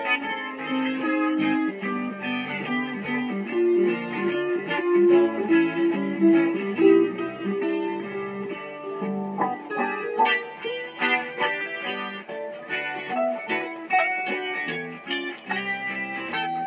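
Guitar played live: a steady stream of plucked notes and chords.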